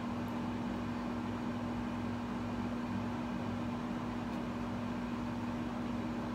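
Steady machine hum with one constant low tone under an even hiss, unchanging throughout.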